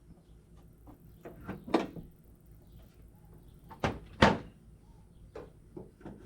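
Several separate knocks and thuds, two loud ones close together about four seconds in.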